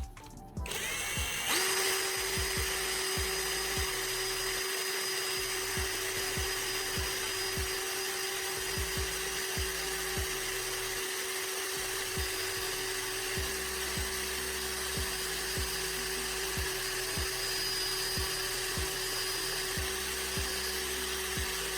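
Electric drill running at a steady speed, spinning a graphite rod against sandpaper to taper its end to a point, with a steady whine over a hiss. It starts up about a second in and stops just before the end.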